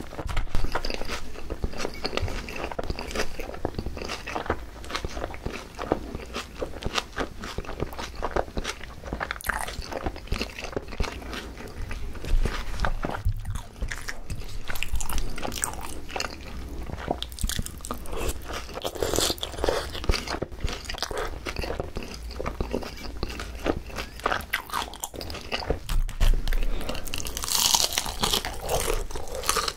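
Close-miked chewing and crunching of Korean green onion chicken (pa-dak): crispy fried chicken and shredded raw green onion crunched between the teeth, with a louder crunchy bite near the end.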